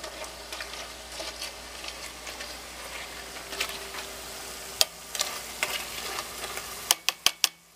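Tortilla chips sizzling and crackling in hot oil in a deep fryer basket, with scattered sharp clicks and a quick run of four near the end.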